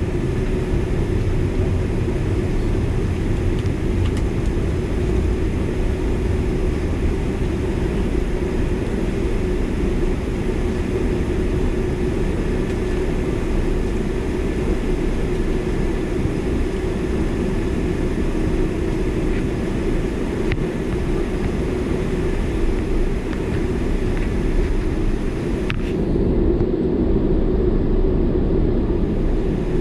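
Cabin noise of a jet airliner taxiing, heard from inside the cabin: a steady low rumble from the idling jet engines and rolling gear, with a constant hum over it. About 26 seconds in, a thin high hiss drops away while the rumble continues.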